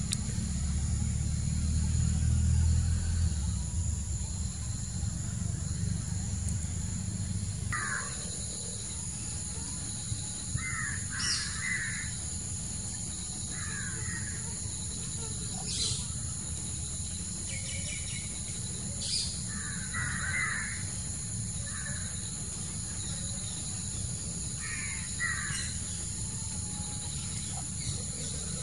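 Bird calls, short harsh calls recurring every second or two, over a steady high-pitched whine. A low rumble fills the first several seconds and then drops away.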